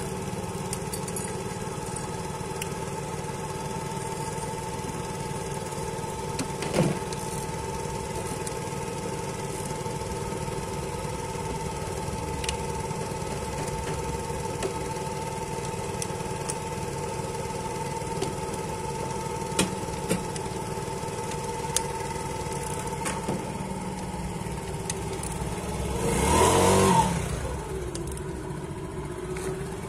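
Piaggio Vespa S50 scooter's 80 cc single-cylinder two-stroke engine idling steadily, revved once up and back down near the end. A few light clicks sound in between.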